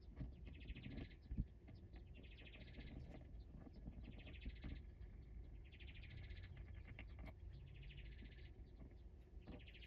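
Faint background of a small bird singing a short buzzy trill over and over, about once every two seconds, with a few faint clicks and taps between the trills.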